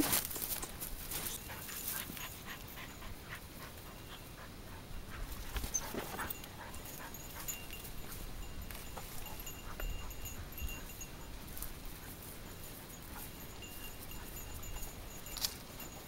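Hunting dogs barking and whining. At the start, clothing rustles against the microphone.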